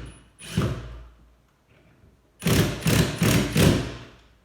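Knocks and thuds from a wooden prehung door frame being shifted in its opening: one knock about half a second in, then a quick run of four knocks.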